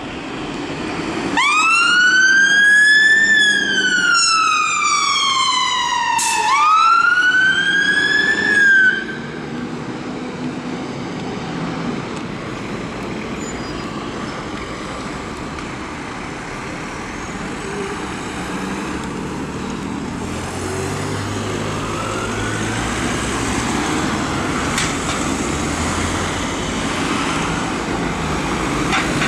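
Fire engine siren sounding a slow wail, rising and falling twice, then cutting off suddenly about nine seconds in. After it, a fire engine's diesel engine runs under street traffic noise, with a faint siren wail further off later on.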